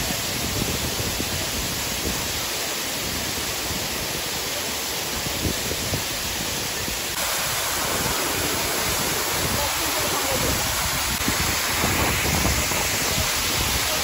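Waterfall in full flow: a steady rushing noise of falling water. It grows a little louder and brighter after a cut about seven seconds in.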